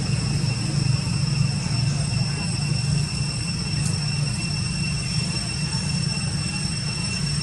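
Steady outdoor background: a low rumble with constant high-pitched whining tones above it, no distinct event.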